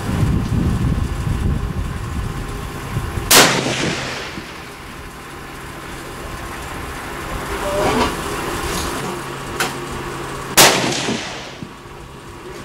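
Two loud rifle shots about seven seconds apart, each trailing off in a short echo, with fainter sharp reports between them.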